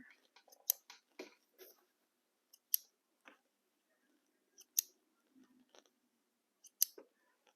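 Small scissors snipping a few times, one to two seconds apart: sharp single clicks with faint fabric rustle between them, as thread ends are trimmed from freshly sewn patchwork.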